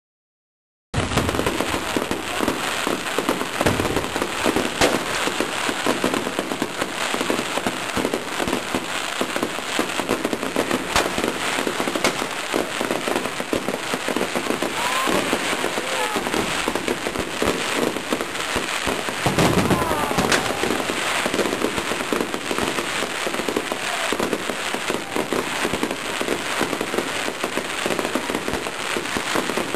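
Fireworks display going off: a dense, continuous rattle of crackling bangs and pops, starting abruptly about a second in.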